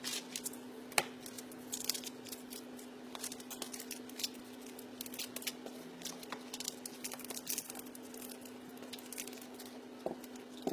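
Wrapping paper rustling and crinkling as it is folded and creased around a hardback book, in many short crackles, the sharpest about a second in. A steady low hum runs underneath.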